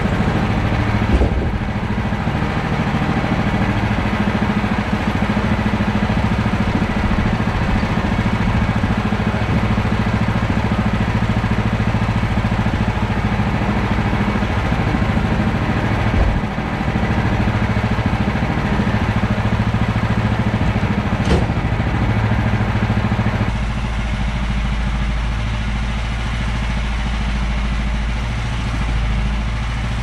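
Sawmill's gas engine idling steadily, with a couple of sharp wooden knocks as boards and a log are handled on the mill bed. The sound turns deeper about three-quarters of the way through.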